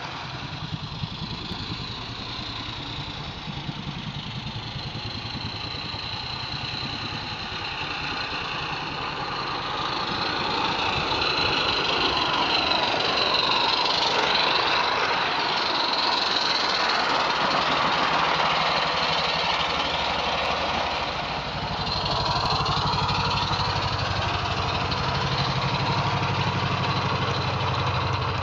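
Small live-steam garden-railway locomotive running with its train, a fast even beat of exhaust and wheels on the track. It grows louder as it passes close about halfway through.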